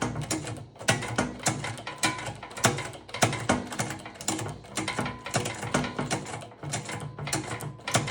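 Safe lock being opened with a locksmith's tool: fast, irregular metallic clicking and rattling as the tool works and turns inside the lock.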